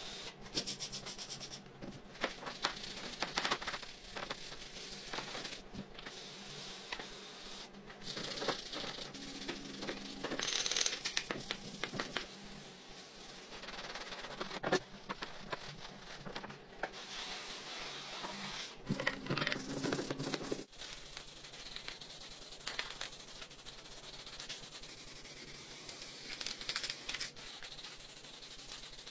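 Workshop cleaning and refinishing sounds in quick succession: liquid spray hissing onto a rusty part, a stiff brush scrubbing through foamy cleaner, and an aerosol can spraying paint onto handlebars. The sound is a changing hiss broken by short scrapes and clicks.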